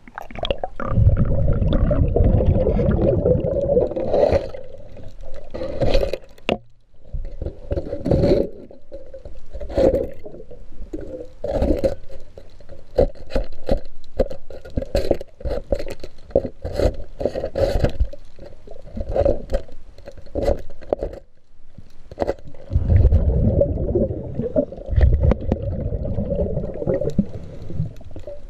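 Remora hull-cleaning tool scraping fouling off a boat's hull, heard underwater through a camera housing. Repeated scraping strokes with clicks and a low rumble, with two short pauses.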